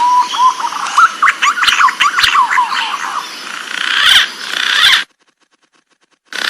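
Green pigeon (punai) calling: a held whistle, then a run of quick warbled whistling notes sliding up and down, turning harsher towards the end. It cuts off abruptly about five seconds in, and a short burst of the call starts again just before the end.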